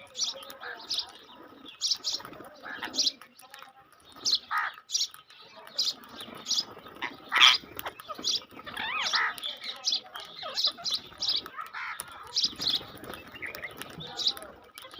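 Birds chirping: a run of short, high chirps repeated every half second or so, with other calls mixed in.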